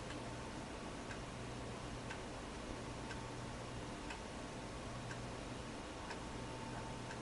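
Faint ticking, one tick about every second, over a low steady hum.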